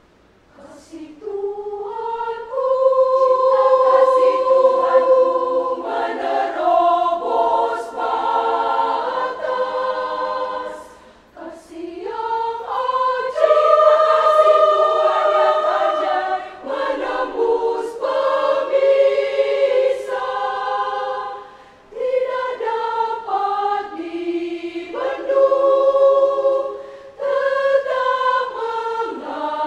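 Women's choir singing in several parts. It comes in about a second in after a brief silence, and it pauses briefly between phrases a few times.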